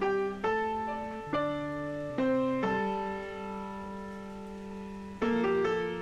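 Background piano music: several notes and chords struck in the first three seconds, then a long held chord fading away until a new chord comes in near the end.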